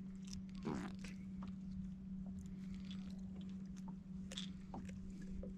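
Faint scattered clicks and small rustles of handling over a steady low hum, with a brief faint voice-like sound a little under a second in.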